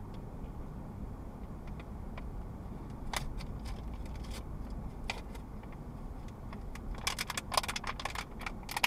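Steady low rumble of a car driving, heard from inside the cabin, with scattered light clicks and rattles that crowd together near the end.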